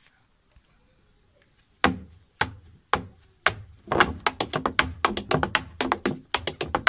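Irish step dancing in hard-soled shoes on a wooden board: after a short pause, a few single strikes about half a second apart, then fast rhythmic battering of heels and toes on the wood from about halfway through.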